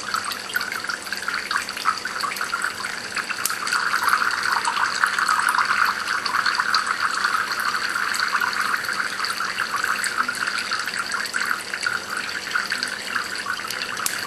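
Water from a homemade Kelvin water dropper running in thin streams and drops into its two collecting cans, a steady splashing hiss full of small patters.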